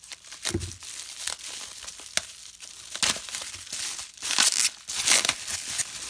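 Bubble wrap crinkling and rustling as it is handled and pulled off a small box, with its tape being slit with a folding knife. The crinkling comes in irregular bursts and gets louder in the second half.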